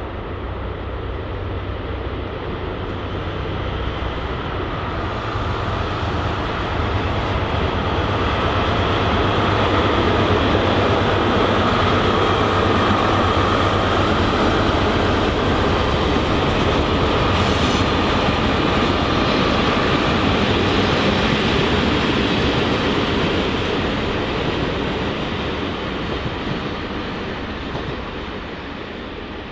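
A train passing by on the line: its running noise grows louder over about ten seconds, stays loud for about ten more, then fades away near the end.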